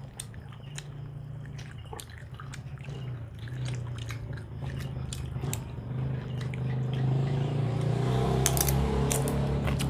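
Close-miked eating: chewing and biting food, with scattered short crisp clicks and smacking, over a steady low hum. The eating grows louder and busier about seven seconds in.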